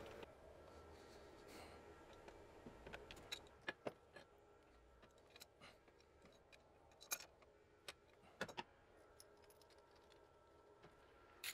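Faint, irregular metallic clicks and clinks over near silence, as a steel camshaft alignment tool is handled and fitted against the cam gears of a BMW N62 V8.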